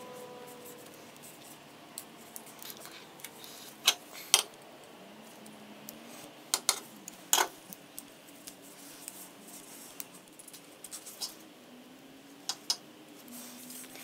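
Small metal parts being handled on a steel workbench: a motorcycle brake light switch, its small return spring and a braided stainless cable being worked by hand, giving a scattering of sharp clicks and taps every second or two.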